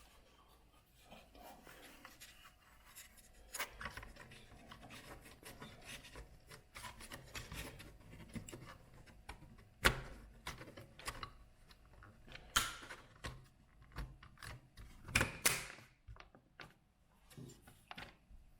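Small parts handled by hand: irregular rubbing and scraping with a few sharp clicks and knocks, the loudest about ten, twelve and fifteen seconds in.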